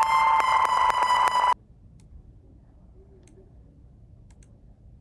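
A synthesized ringtone playing back: a bright, steady electronic beeping tone with a regular pulse, which cuts off suddenly about a second and a half in. A few faint clicks follow.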